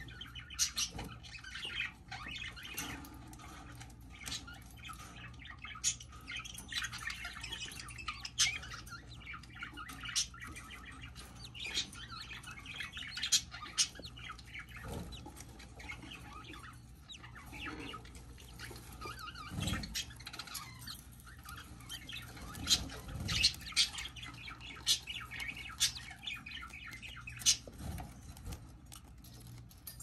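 Budgerigars chirping and squawking in short, scattered calls, with a few soft thumps.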